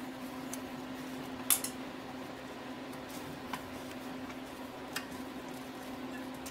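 Light metallic clicks and taps from hands working the top cap of an ATV carburetor as it is loosened. The sharpest click comes about a second and a half in, and a steady low hum runs underneath.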